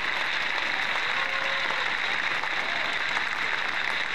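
Arena crowd applauding steadily at the end of a badminton match.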